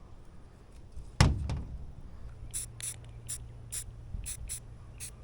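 A sharp knock about a second in, then a string of short hissing spritzes, two or three a second, as rust converter is sprayed onto small rust spots, over a faint low hum.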